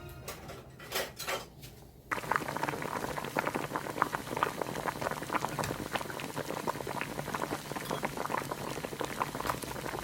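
A pot of liquid at a rolling boil, a steady dense crackle of bubbling that starts abruptly about two seconds in after a quieter moment.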